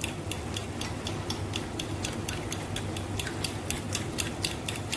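A spoon beating yogurt and cream in a plastic bowl, knocking against the bowl in a steady rhythm of about four clicks a second.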